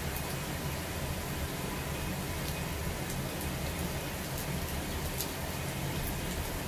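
Steady rain, an even hiss with scattered sharp ticks of drops landing close by.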